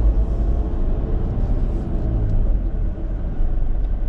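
Steady low engine and road rumble heard inside a moving car's cabin.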